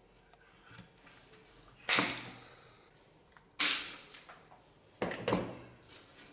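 Three sharp knocks or snaps from a hand tool working on a small wooden stand, about two seconds in, near the middle and a quick double one a second later, each dying away over about half a second.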